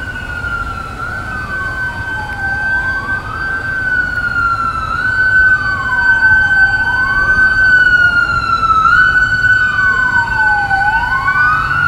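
Police sirens wailing. One tone holds steady high while a second slowly sweeps down and back up about every four seconds. It grows louder over the first half, over a low, even noise.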